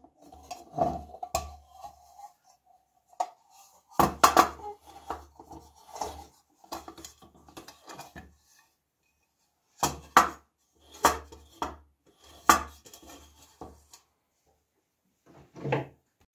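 Antique brass caviar dish being handled: its lid and bowl knock and clink against each other and the table in irregular clusters. Near the start, one knock leaves the brass ringing with a single tone that fades over about three seconds.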